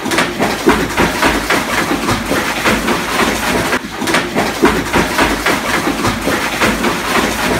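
Bath water churning and splashing in a foamy jetted tub while a German Shepherd wades and snaps at the bubbles: a loud, dense rush of water with many small irregular splashes.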